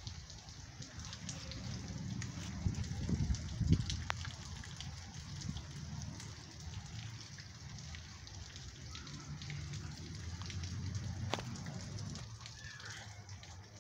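Rain falling, with many scattered sharp drop ticks over a steady hiss and a low rumble underneath.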